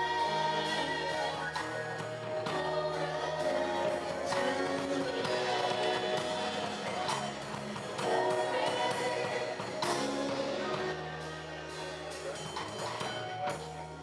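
Gospel choir music: voices singing together over sustained bass notes and a steady beat of percussion strokes.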